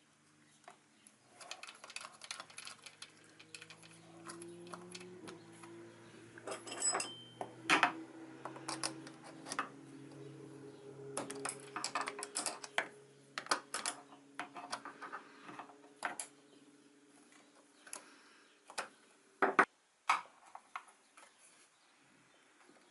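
Irregular clicks and light knocks of small hard objects being handled, the loudest about a third of the way in and again near the end, with a faint steady low hum underneath for much of it.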